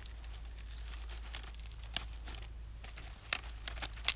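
Thin dry twigs crackling and snapping as they are pushed by hand into the split top of a Swedish torch log as kindling, with a few sharper snaps about two seconds in, past three seconds and near the end.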